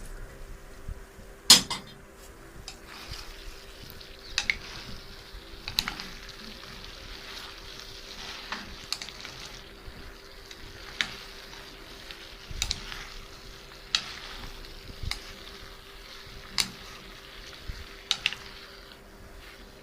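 Fried chicken pieces being stirred through chili sauce in a pan on the heat: a soft steady sizzle, with the stirring utensil clinking against the pan every second or so. The loudest clink comes about a second and a half in.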